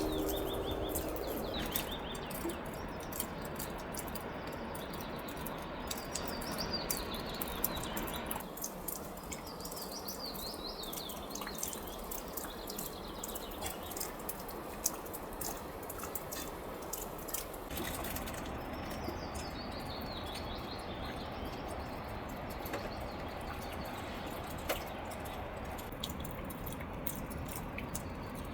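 Small birds singing repeated high, descending chirpy phrases every few seconds, over a steady hiss of rain and dripping water.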